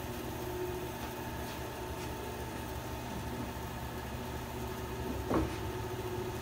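Grizzly G0555XH 14-inch bandsaw running steadily with a constant hum, with one brief louder sound about five seconds in.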